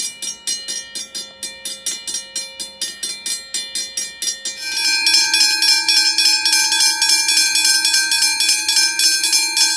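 Railroad crossing bell ringing with even, rapid strikes, about four a second. About two thirds of the way through it cuts to a louder Westinghouse Australian hybrid crossing bell, ringing at a similar rate with a different set of tones.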